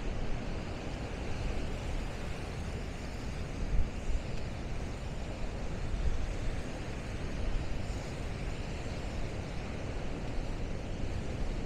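Wind buffeting the microphone over the steady noise of heavy storm surf, with a brief louder gust about four seconds in.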